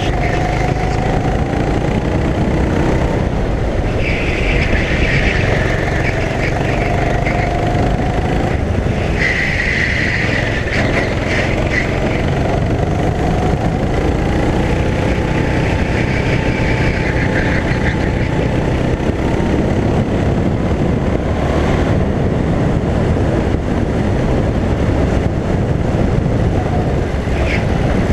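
Rental go-kart engine heard onboard, running hard with its note slowly rising and falling as the kart speeds up and slows through the lap.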